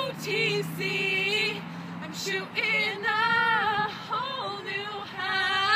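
Female voices singing a pop song over a backing music track.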